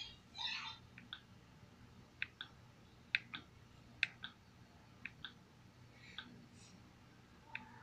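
Plastic remote-control buttons being pressed, about one click a second, many as quick press-and-release double clicks, as the on-screen menu is scrolled.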